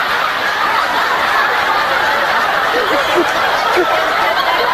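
An audience laughing, many voices overlapping in a steady wash of laughter and chatter.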